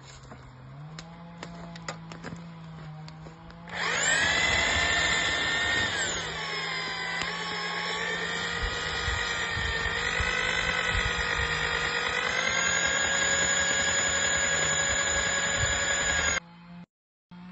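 Electric drill motor running under load for about twelve seconds, its whine dipping and wavering in pitch as it works, typical of a drill-driven paddle stirring the paint mixture. It starts abruptly about four seconds in and cuts off suddenly near the end.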